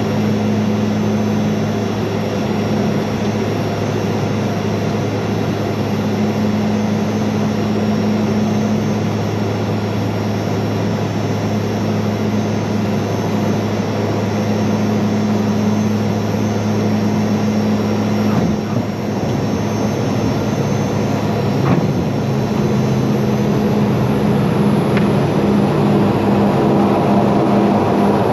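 Cockpit noise of a Mitsubishi MU-2's twin Garrett TPE331 turboprop engines during descent: a steady propeller drone with a constant low hum. About two-thirds of the way through, the low tone changes and begins to waver, and a brief click follows a few seconds later.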